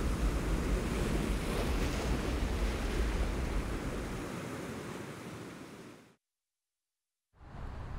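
Ocean surf washing and breaking on a rocky shore, a steady rushing noise with a low rumble. It fades out over a couple of seconds and cuts to silence about six seconds in, and a faint steady background hiss returns near the end.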